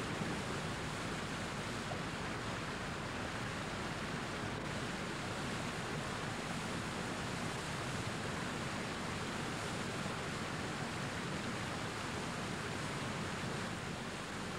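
White-water river rapids rushing steadily over rocks, a continuous even wash of water noise.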